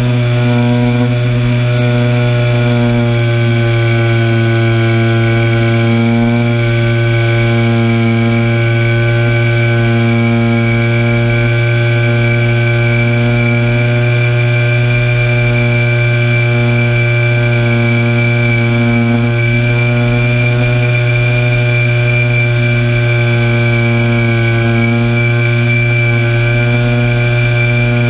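RC airplane's engine running steadily in flight, heard close up from a camera on the plane; its buzzing drone holds a nearly steady pitch with only slight wavers.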